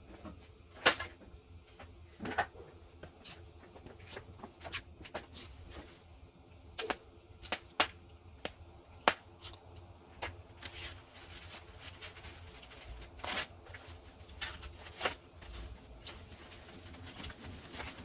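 Tightly wrapped parts packaging being cut and pried open with a makeshift tool: irregular sharp clicks and snips, then plastic wrapping rustling and tearing from about halfway in.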